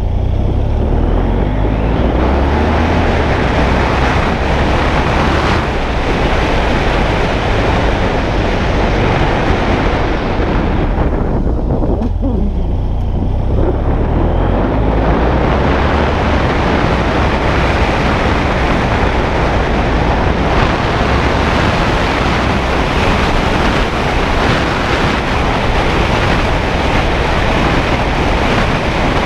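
BMW F 800 GS parallel-twin engine running as the motorcycle is ridden on a dirt road, heavily buffeted by wind noise on the microphone. The higher sound thins out briefly near the middle, then comes back.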